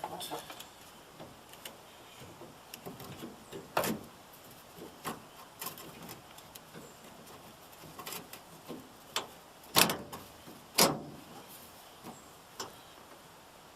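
Scattered clicks and knocks of hands working a pickup's plastic taillight housing and twist-lock bulb socket, fitting a 3157 LED bulb, with two louder knocks about a second apart near the end.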